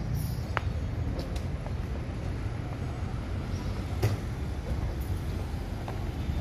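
Street traffic: a steady low rumble of vehicle engines, with a couple of short sharp knocks, the loudest about four seconds in.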